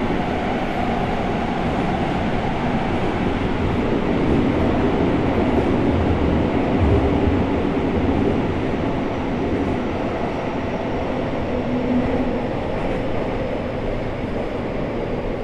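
Running noise of a Seibu 6000 series train with Hitachi GTO-VVVF inverters, heard inside the aluminium-bodied car: a steady rumble of wheels and motors on the rails in a subway tunnel. A faint high whine slowly falls in pitch through the second half.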